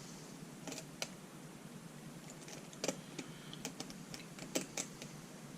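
Light, irregular metallic clicks of a lock pick working the pins of a Medeco Biaxial lock held under tension, as the pins are lifted and rotated toward the sidebar.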